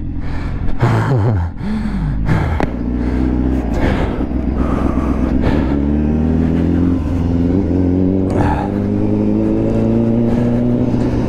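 Honda Fireblade's inline-four engine revved in short blips, then pulling away at low speed with a steady note that climbs slowly and dips once near the end.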